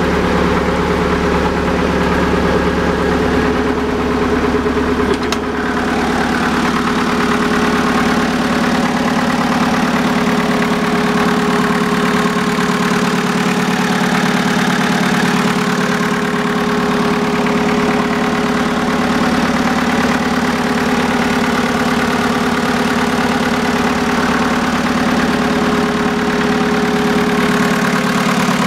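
Motor cutter's engine running steadily under way, heard up close during an engine inspection. A single click about five seconds in, after which the deepest rumble drops slightly.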